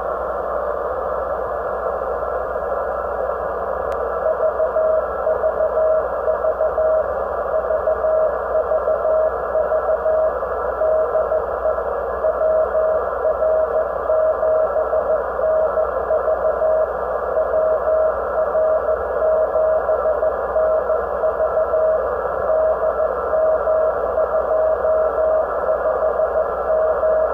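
Shortwave receiver hiss from the Alinco DX-70 transceiver's speaker, and from about four seconds in a single Morse code tone keyed on and off in dots and dashes above the noise: the WR7NV 6-metre CW beacon on 50.0635 MHz being received.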